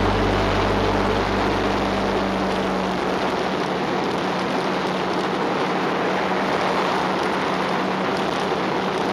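Steady rushing wind and road noise from a moving ride, a loud even hiss. Background music fades out over the first few seconds.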